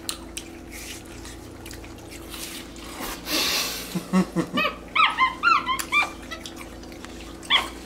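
Capuchin monkeys chirping and squeaking as they feed on watermelon. A few lower calls about four seconds in lead into a quick run of short, high, rising-and-falling chirps, with one more chirp near the end.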